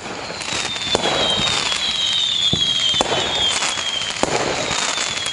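Fireworks sound effect: several sharp bangs with crackling, over overlapping whistles that each fall slightly in pitch, fading in over the first second.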